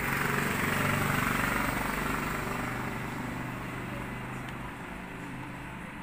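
A motor vehicle's engine running as it passes, loudest about a second in and slowly fading away.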